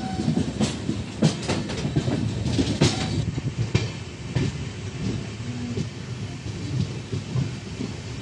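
A passenger train running, heard from on board: a steady low rumble of the coach with wheels clacking over rail joints, the clacks coming thickest in the first half.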